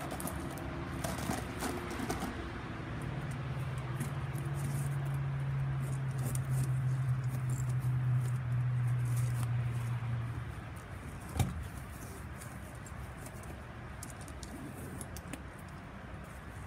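Rustling and small clicks of items and packaging being handled. A steady low hum comes in about three seconds in, holds for about seven seconds and fades out. There is one sharp click about eleven seconds in.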